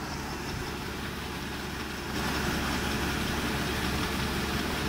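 Combine harvester engine running steadily with a low hum, getting louder about two seconds in.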